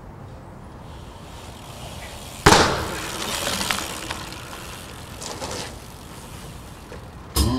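A sudden loud crash about two and a half seconds in, with a clattering tail that dies away over about a second and a half, then a fainter scrape a few seconds later.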